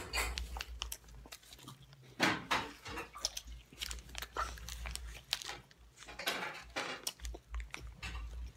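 Children chewing and biting into food close to the microphone: irregular mouth clicks and chewing noises with no steady rhythm.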